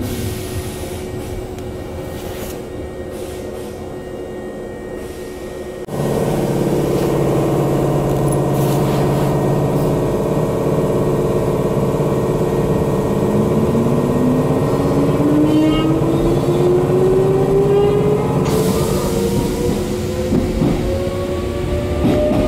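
Former Hankyu electric train at a station stop. About six seconds in, a steady machinery hum cuts in suddenly and louder. From about thirteen seconds the traction motors' whine rises steadily in pitch as the train pulls away and gathers speed.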